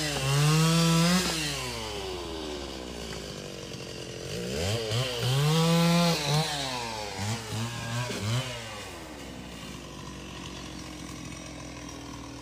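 Chainsaw revving up twice, each time rising in pitch, holding for a second or two, then dropping back, with a few shorter blips after the second rev. From about nine seconds in it runs more quietly and steadily.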